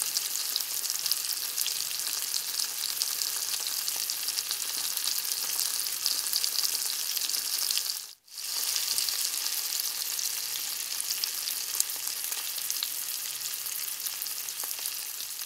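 Browned reindeer meat sizzling steadily in a hot pot: a fine crackling hiss that cuts out briefly about eight seconds in.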